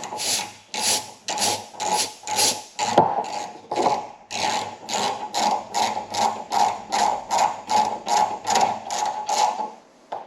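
Hand reamer being turned through a car door hinge's worn pin bore with cutting fluid, opening it out for a first-oversize hinge pin. It makes a regular series of rasping cutting strokes, about two a second at first and then about three a second, stopping shortly before the end.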